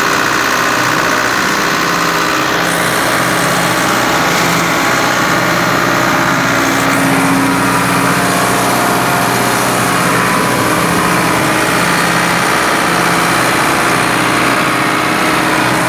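Ford 6610 tractor's four-cylinder diesel engine running steadily under load, driving a Çetin Kayalar automatic hay baler as it picks up windrowed alfalfa.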